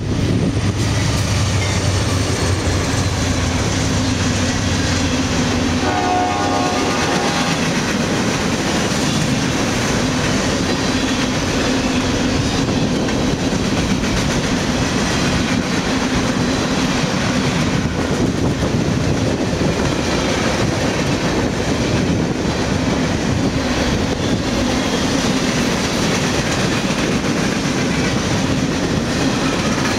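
Freight train passing close by: the diesel locomotives' engine drone fades right at the start, then a long string of freight cars rolls past with a steady wheel clatter over the rail joints. A short horn blast sounds about six seconds in.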